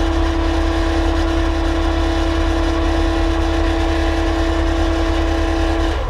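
Skid loader running steadily, heard from inside the cab: an even low rumble with a constant whine over it.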